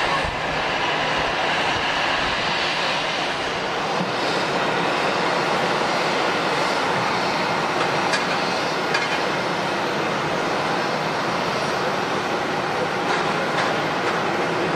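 Jet airliner engines running, a loud steady rushing noise that holds level throughout.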